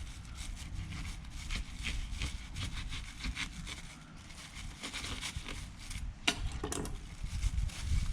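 Knife cutting through a dragon fruit (pitaya), a run of short scraping strokes with two sharper clicks about six seconds in.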